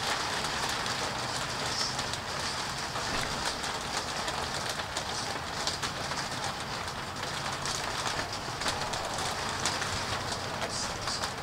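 Steady rain from a thunderstorm hissing down, with scattered drops tapping sharply nearby.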